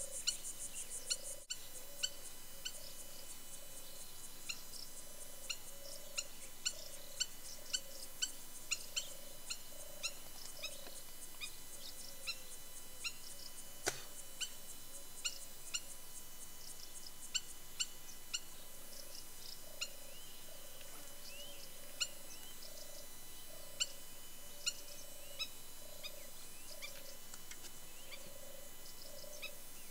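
Birds chirping over a steady hiss: many short, high chirps, with a lower call repeating on and off. A single sharp click comes near the middle.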